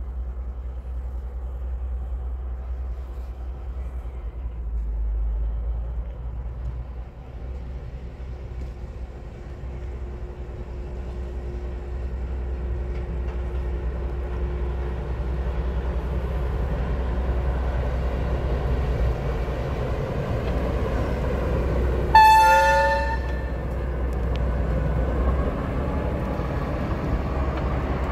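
DB class V 60 diesel shunting locomotive running toward and past, its engine growing louder as it approaches, with one short horn blast about three quarters of the way through.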